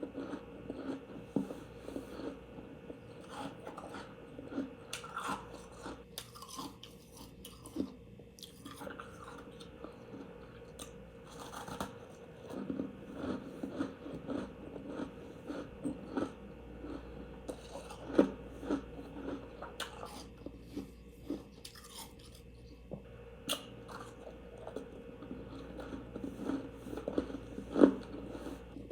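Someone biting and chewing freezer frost, an irregular run of crisp crunches, the sharpest about two-thirds of the way in and near the end.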